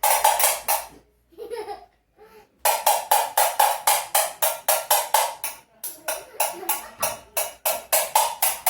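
Spoons played as percussion, clacked together in a quick, steady rhythm of about four to five strikes a second. A short burst comes at the start, then after a pause the playing runs on without a break from about a third of the way in.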